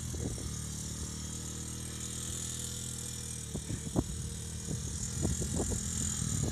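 Quad ATV engine running steadily at a low, even note, with a sharp knock about four seconds in and several softer knocks near the end.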